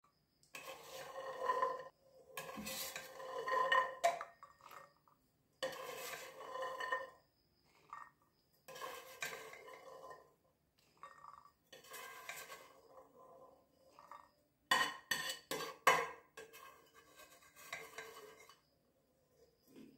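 A spoon serving cooked yellow peas onto a plate, scraping and clinking against the dish in repeated bursts a second or two long, with a quick run of sharp clinks about three-quarters of the way through.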